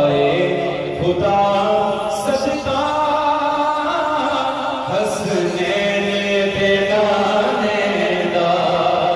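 A man singing a devotional poem into a handheld microphone, in a melodic chant with long held notes.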